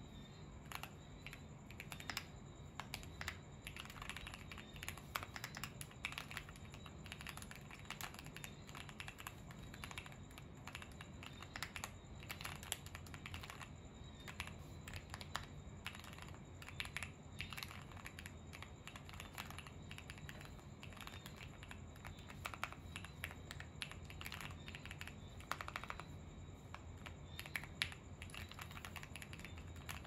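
Keychron Q1 mechanical keyboard being typed on continuously: lubed Jwick Black linear switches on the stock steel plate with GeekArk keycaps, the case dampened with foam and polyfill and tape-modded. A quick, irregular stream of keystroke clacks with the occasional louder stroke.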